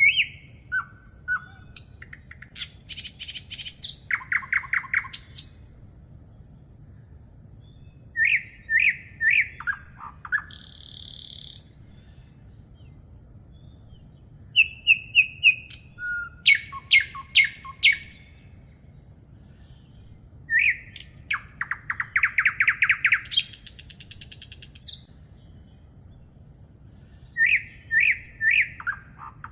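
Songbirds singing, with song phrases repeating every few seconds: runs of clear chirping notes, quick trills and high buzzy notes, over a low steady rumble.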